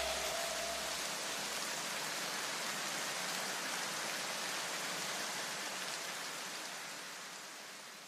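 Steady rain-like hiss that slowly fades out near the end, with a low rumble dying away in the first couple of seconds.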